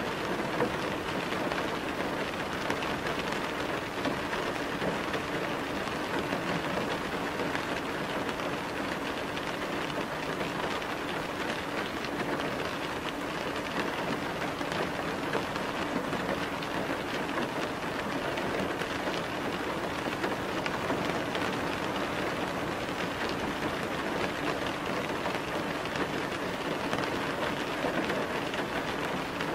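Steady rain falling on a surface, an even hiss with no breaks or changes.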